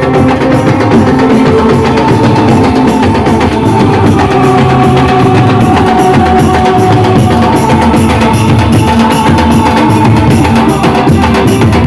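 Loud music with heavy drums and bass played through a sound system under test, the beat steady and driving throughout.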